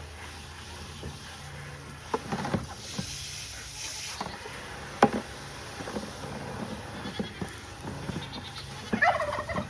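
A goat bleats once near the end, after several scattered knocks and clatters.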